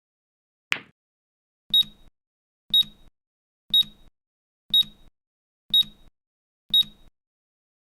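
A last sharp click from the Newton's cradle timer sound, then six short high electronic beeps, one a second, signalling that the countdown has ended.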